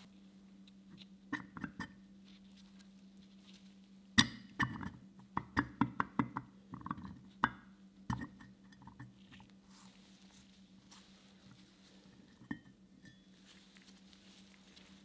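Hard metal-on-metal clinks and knocks as a steel lathe chuck is taken apart and its bevel-toothed ring is worked loose and lifted out of the chuck body. There are a few knocks a second or so in, then a quick run of clinks between about four and eight seconds in, and one more later, over a faint steady hum.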